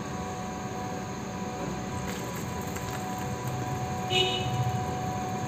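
Steady background hum with faint steady tones, and a brief high-pitched squeak about four seconds in.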